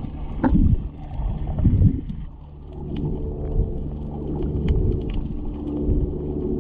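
Muffled underwater sound from a GoPro Hero7 held below the surface: a steady low machine hum from the moored boat, under water rumble, with two louder swishes of water moving in the first two seconds and faint scattered clicks.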